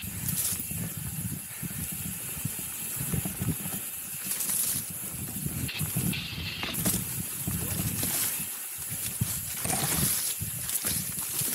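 Mountain bike riding a rough, dry dirt trail: tyres rumbling and crunching over loose ground, with a continuous rattle of the bike and a steady rush of wind across the microphone.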